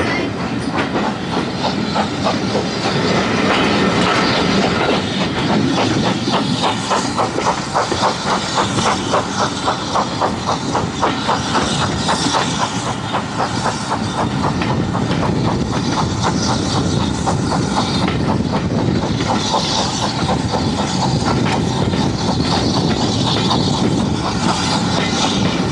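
Steam-hauled heritage train pulling away and running, heard from an open carriage window: steady rumble and hiss of the coaches on the track, with a fast, even beat for several seconds in the middle.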